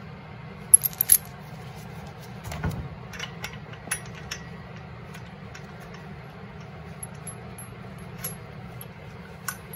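Light metallic clinks and taps as the secondary clutch, its bolt and washer are fitted onto a snowmobile jackshaft by hand: a quick cluster of sharp clinks about a second in, a dull knock a little later, then scattered small ticks, over a steady low hum.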